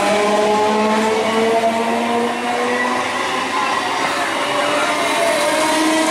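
Electric multiple unit local train passing close by at speed: a steady rushing of wheels on rail under a whine of several steady tones from its electric traction motors, which slowly slide in pitch as the motor coaches go by.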